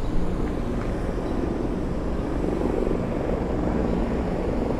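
Several helicopters flying overhead, a steady rotor and engine drone.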